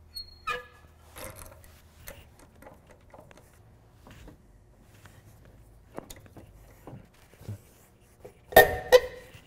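A 22 mm socket and breaker bar clinking against chrome lug nuts as they are fitted and worked loose: scattered light metal clicks, a ringing clink about half a second in, and two loud ringing metal clanks in quick succession near the end.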